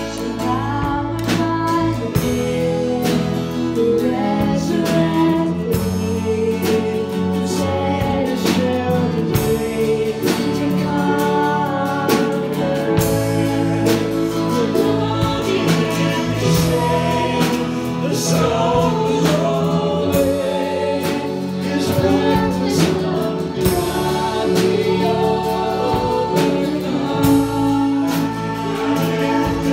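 Gospel worship song: several voices singing together over instrumental accompaniment with a steady percussive beat.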